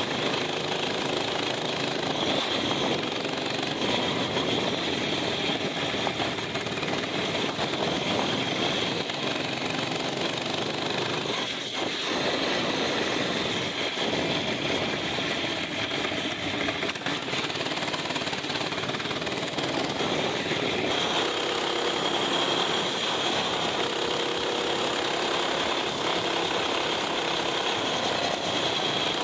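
Mini bike's small single-cylinder engine running with a rattly note as the bike is ridden, its pitch shifting up and down with the throttle.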